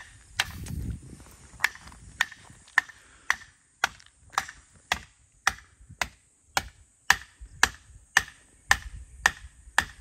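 Sharp mechanical clicks repeating evenly, a little under two a second, like a ratchet or ticking mechanism.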